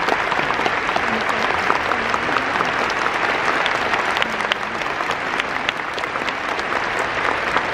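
Stadium crowd applauding steadily, many hands clapping at once.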